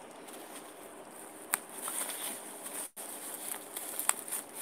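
Bubble wrap crinkling and rustling as it is pulled away from a camera lens by hand, with a few sharp clicks. It is quiet for about the first second and a half, then the crackling starts.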